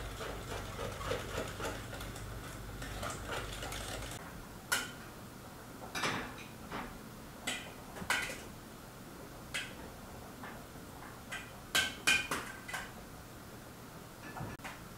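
A utensil clinking and scraping in a bowl as pancake batter is mixed: quick light tapping for the first few seconds, then a dozen or so separate sharp clinks spread out.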